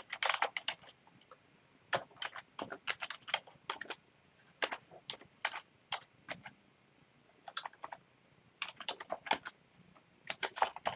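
Typing on a computer keyboard: irregular runs of key clicks, with brief pauses about a second and a half in and again around seven seconds.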